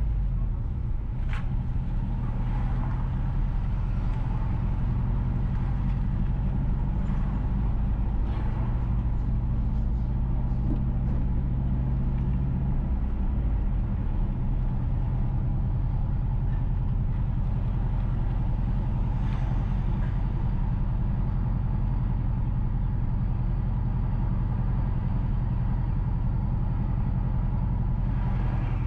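A moving car's engine and road noise: a steady low drone whose pitch shifts about halfway through, with a few faint ticks.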